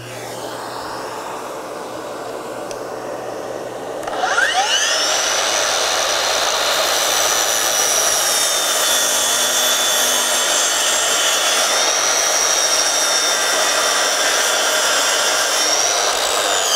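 A vacuum on the saw's dust port runs steadily. About four seconds in, the DEWALT FlexVolt 60V DCS781 12-inch sliding miter saw's motor spins up to a high, steady whine and runs while the blade makes a bevel cut through a wide board. Right at the end the whine starts to fall as the motor winds down.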